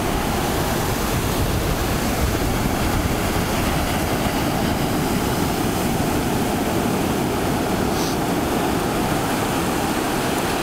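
Ocean surf breaking and white water rushing up the beach, a steady noise at an even level.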